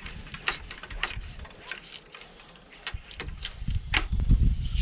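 A cleaning rod with a wet sponge pumped through a rifle bore that stands muzzle-down in a bucket of soapy water, the water drawn in and pushed back out by the pumping. It gives wet sucking and sloshing, with scattered sharp clicks of the rod and a low rumbling that comes up from about the middle on.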